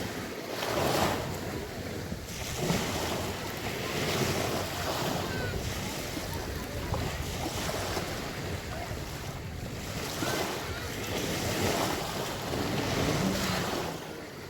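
Sea waves breaking and washing on the shore: a continuous rush of surf that swells and eases, with wind noise on the microphone.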